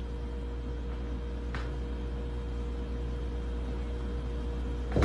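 A steady low mechanical hum with a faint whine in it, as from a running household appliance. There is a faint click about a second and a half in and a louder thump near the end.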